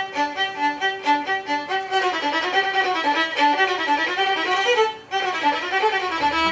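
Solo violin playing a longa, a fast Arabic-Turkish instrumental dance form. It opens with quick repeated notes, then about two seconds in breaks into a fast running passage of rising and falling figures, with a brief break about five seconds in.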